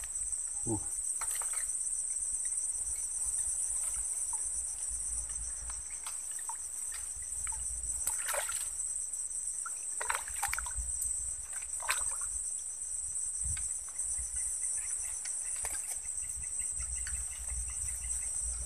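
Steady chorus of insects with a high-pitched, fast-pulsing trill that never lets up. A few short, soft knocks and rustles sound over it, most of them around the middle.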